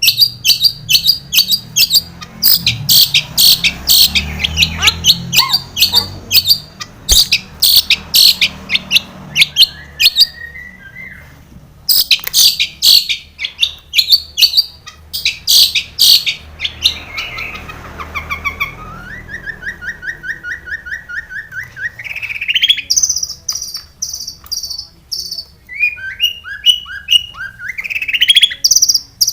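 Long-tailed shrike singing a varied song full of mimicked phrases: rapid chattering notes for much of the first half, then a fast even trill and rising whistled notes later on.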